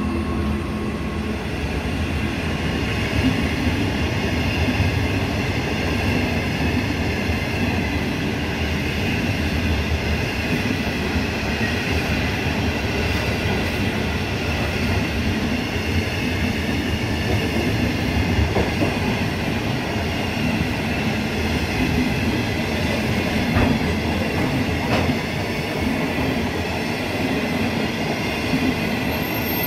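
Container freight train's wagons rolling past close by: a steady, loud rumble of steel wheels on rail with thin high ringing tones from the wheels and an occasional faint clack.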